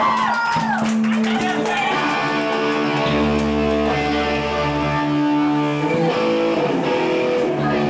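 Live punk band's amplified electric guitar playing long held chords, with a low bass note coming in about three seconds in and again near the end. Crowd whoops fade out at the very start.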